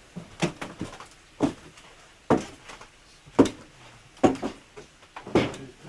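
A series of sharp knocks and clunks in a small room, roughly one a second, some coming in quick pairs.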